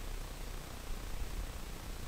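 Steady background hiss with a low rumble underneath; no distinct sound stands out.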